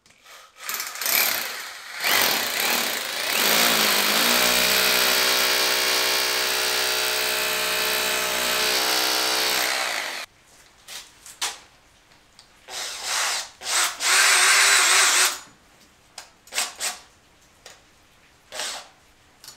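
Cordless drill with a masonry bit boring a hole into the ceiling, running steadily for about eight seconds with its pitch dropping a couple of seconds after it starts. Then come several short bursts of the drill as the first conduit mount is fixed into the hole.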